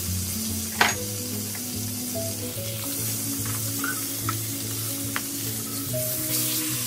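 Wagyu steak sizzling in its fat in a nonstick frying pan, with a sharp click about a second in and lighter clicks of tongs and a spatula against the pan. The sizzle swells near the end as the steak is turned over onto its other side.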